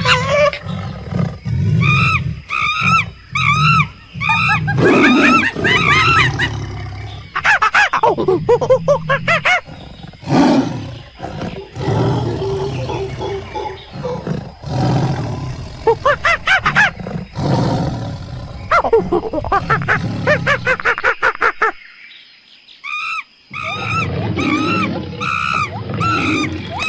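Monkeys giving repeated shrill, arching cries, the alarm calls monkeys raise at a tiger climbing in the trees, over a steady low rumble. The sound drops out abruptly a little after twenty seconds and returns about a second and a half later.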